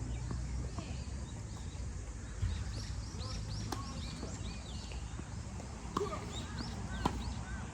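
Tennis ball struck by rackets during a rally: three sharp hits, about a third of the way in, then two a second apart near the end. Many short high-pitched chirps come and go between the hits.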